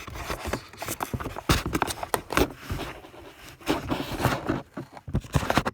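Keyboard packaging being handled as the keyboard is worked out of its box: irregular scraping, rustling and knocking of cardboard and plastic.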